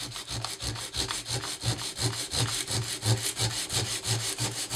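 Worn 100-grit sandpaper rubbed by hand over the aluminum bell housing of a 1982 Royal Model 880 upright vacuum, in rapid, even back-and-forth strokes, sanding out deep scratches in the soft metal.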